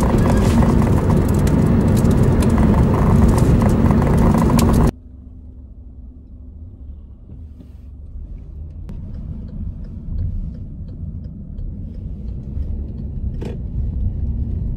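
A car driving, heard from inside the cabin. A loud rushing noise for about the first five seconds cuts off abruptly, leaving a low road rumble with a few faint ticks that slowly grows louder.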